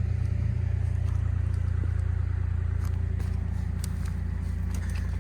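Kubota KX040 mini excavator's diesel engine running steadily with a deep, even rumble, with a few light clicks about three to four seconds in.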